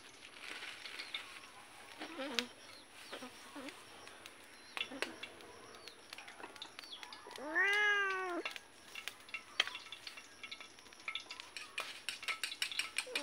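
A cat meowing: one long meow about eight seconds in that rises and then falls in pitch, with a few fainter short calls earlier. Light clicks and knocks sound in the background.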